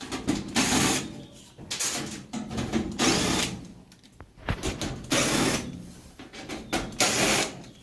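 A 1/4-inch nut driver backing the screws out of a dryer's back panel, in several short bursts of whirring and grinding.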